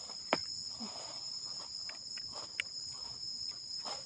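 Steady high-pitched drone of insects chirring, two constant tones held throughout. Over it, a sharp click about a third of a second in and faint short rustles and snaps as a hand picks wild mushrooms out of soil and dry leaf litter.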